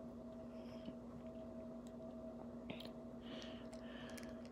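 Quiet room with a steady electrical hum, a few faint clicks from fingers handling and tapping a smartwatch, and soft breathy hiss about a second in and again near the end.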